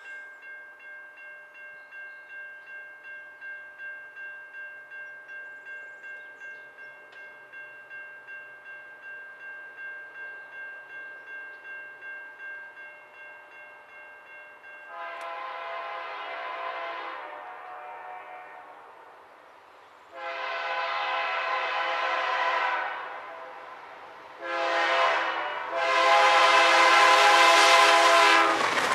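A grade-crossing warning bell rings steadily at a bit under two strokes a second. From about halfway through, the air horn of an approaching BNSF freight locomotive sounds the crossing signal, long, long, short, long, each blast louder as it nears.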